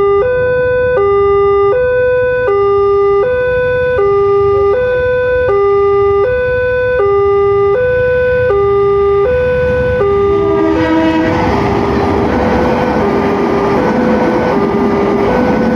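Railway level-crossing warning alarm sounding a steady two-tone high-low signal, each tone a little under a second. About eleven seconds in, the rumble of a passing train rises under it.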